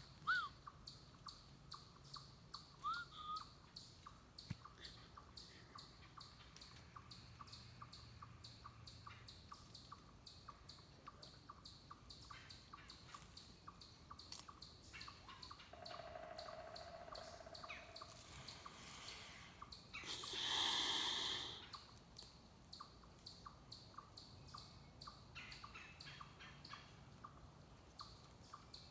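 Faint woodland ambience: a high chirp repeating steadily about two to three times a second, with a brief louder rush of noise about twenty seconds in.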